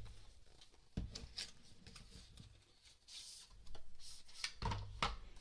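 Faint rustling and scraping of hands opening an Apple Watch Sport Loop band's cardboard box, with a few light knocks and clicks about a second in and near the end.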